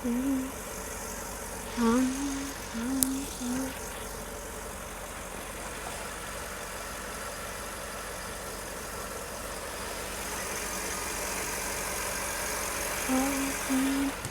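2011 Ford F-150's 6.2 L V8 idling roughly, a steady running sound that gets a little louder about ten seconds in. The rough idle persists even after the sensors, cam and crank parts, fuel pump and filter, plugs and wires were replaced; the mechanic suspects the PCM.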